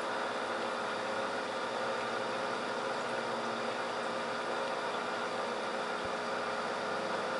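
Steady hum of a running aquarium pump over an even hiss, unchanging throughout.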